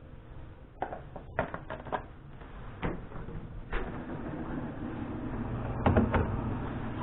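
Food containers being handled and set into a refrigerator: a string of knocks and clunks, with a cluster of them near the end.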